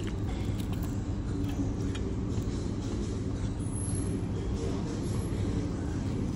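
Steady low background rumble at an even level, with a few faint light clicks.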